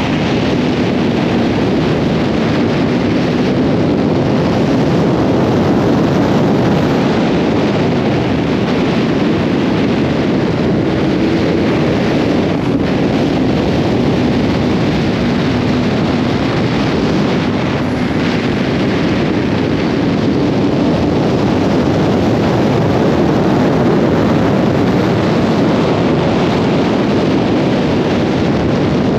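Yamaha FZ1 motorcycle's inline-four engine running steadily at high road speed, about 165 km/h, under heavy wind rushing over the microphone. The wind noise is louder than the engine note.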